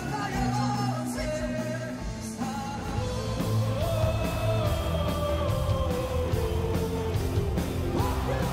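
Music with a sung melody over bass, with a steady beat from about three seconds in.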